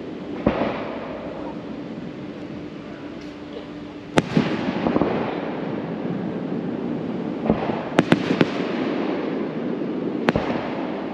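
Aerial fireworks: about seven sharp bangs of bursting shells, the loudest about four seconds in and a quick cluster of three around eight seconds. Each of the bigger bangs is followed by a rushing hiss.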